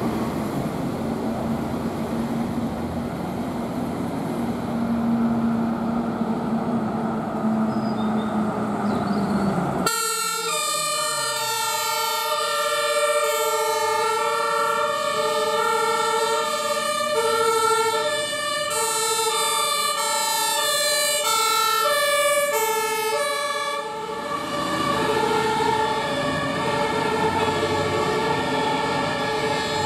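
Road noise and a heavy vehicle's engine with a steady low hum. About ten seconds in, this changes abruptly to a German two-tone emergency siren (Martinshorn) alternating between two pitches. The siren continues with traffic noise underneath near the end.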